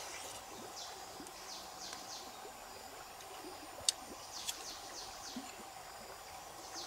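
Forest ambience: a steady hiss with short, falling high chirps here and there and a sharp click about four seconds in.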